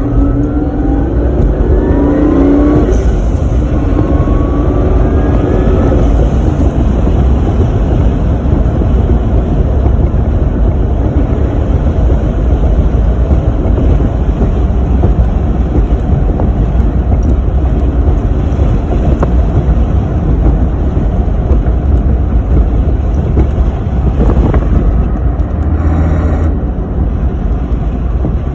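Supercharged 2JZ-GE inline-six of a Lexus IS300 pulling under acceleration, with a whine rising in pitch twice in the first six seconds from its Powerdyne centrifugal supercharger. Then a steady loud rush of engine, road and wind noise as the car cruises.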